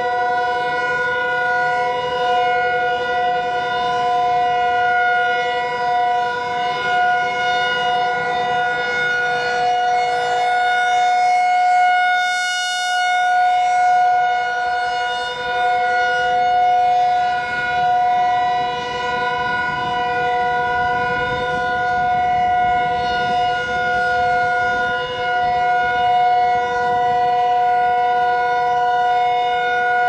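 Tornado warning siren with a rotating horn sounding a steady tone during a test, its pitch held level rather than wailing. The sound swells and fades slightly as the horn turns, and it is brightest about twelve seconds in.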